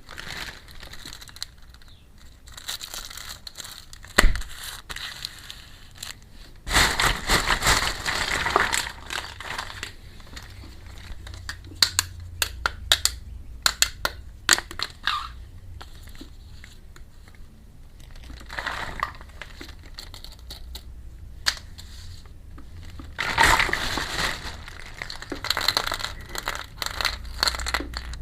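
Plastic packaging of miniature toy kitchen pieces crinkling as it is unwrapped, in several separate bursts, with sharp clicks and taps of small hard pieces in between.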